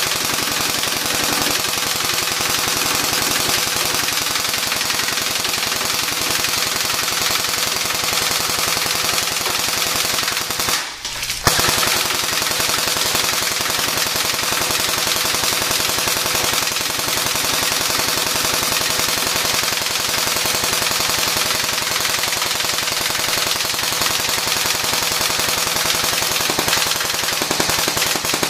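G&G Armaments AK-47 airsoft rifle firing on full auto: a fast, even stream of shots in two long strings, with a brief pause about eleven seconds in.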